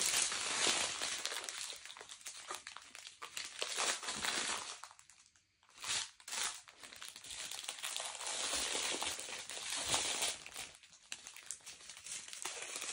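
Small plastic bags of diamond-painting drills crinkling as they are handled, in uneven bursts with a short lull about five seconds in.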